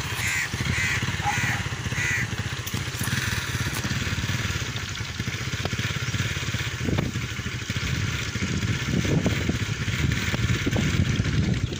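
A crow caws four times in quick succession near the start, over a steady low rumble of a motor running.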